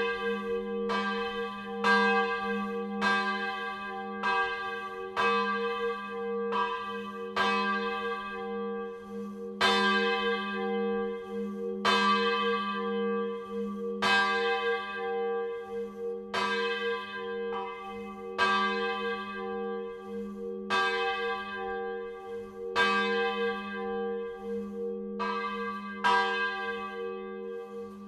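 A single church bell swung by its electric motor drive, its clapper striking about once a second. Each stroke rings out and fades, while the bell's deep hum carries on steadily beneath the strokes.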